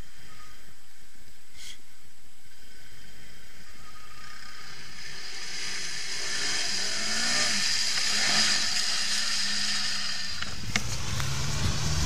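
ATV engine rising and falling in pitch as the quad drives through a muddy puddle, with a rush of splashing water. About ten seconds in, the sound changes abruptly to a closer engine running steadily, with a few sharp knocks.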